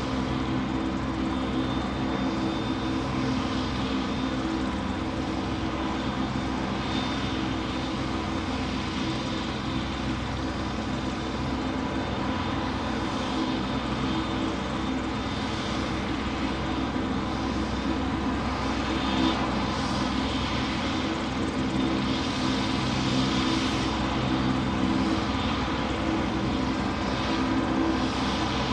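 Steady, unbroken engine drone: a constant low hum of several tones over an even hiss.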